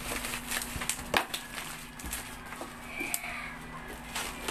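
Plastic parcel wrapping crinkling and crackling as it is handled and cut open with scissors, with a few sharp clicks scattered through.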